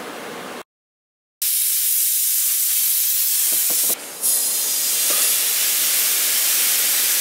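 Compressed air hissing steadily from an air-hose blow gun pushed into a chain of plastic water bottles. It starts about a second and a half in and breaks off briefly near four seconds.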